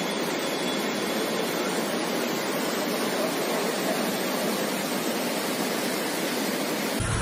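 Steady rushing of water, as floodwater pours through a street in heavy rain, with an even hiss and no distinct events.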